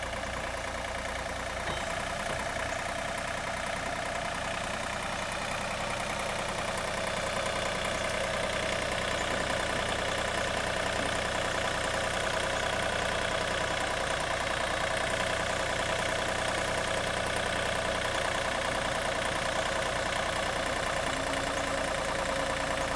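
Takeuchi mini-excavator's diesel engine running steadily while the machine digs, growing slightly louder over the first several seconds.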